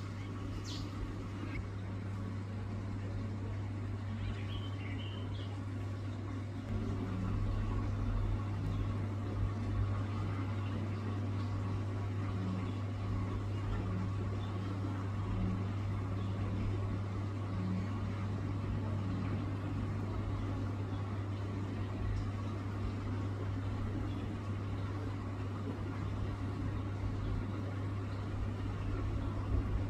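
A steady low hum runs throughout, slightly louder from about seven seconds in. A few brief high bird chirps sound in the first few seconds.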